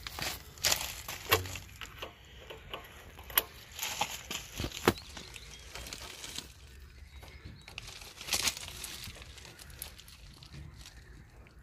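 Scattered sharp clicks and knocks of a bolt and the lower mount of a scooter's rear shock absorber being handled by hand while the bolt is lined up and pushed in, with a brief scrape about eight seconds in.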